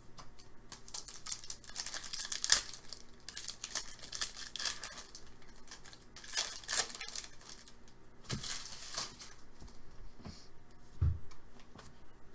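Foil wrapper of an Upper Deck SP Authentic hockey card pack crinkling and tearing in irregular bursts as the pack is torn open and the cards are pulled out, with a dull thump near the end.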